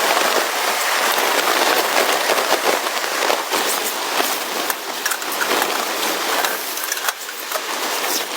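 Steady, dense pattering of precipitation on a surface, many fine ticks running together.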